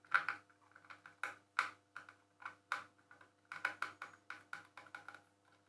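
Screwdriver taking the screws out of a home theatre cabinet: a run of irregular sharp clicks and taps, in small clusters, over a faint steady hum.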